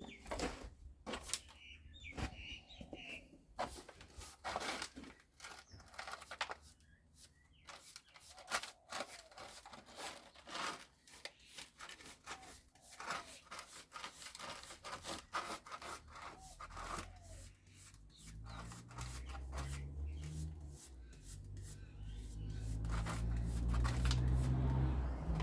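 Irregular scraping, rubbing and clicking of hand work on metal scrap, with a low rumble starting about two-thirds of the way in and growing louder to the end.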